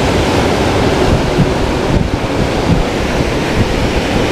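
Ocean surf breaking against the rocks at the foot of a sea cliff, a steady wash of waves, with wind buffeting the microphone.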